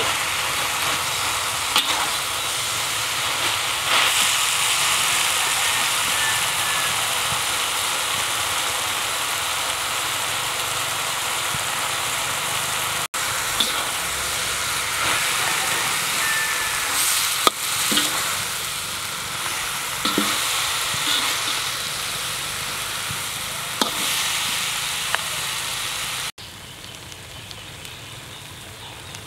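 Pumpkin leaves, shoots and flowers sizzling as they are stir-fried in a wok, with a metal spoon scraping and clinking against the pan now and then. The sizzle turns quieter near the end.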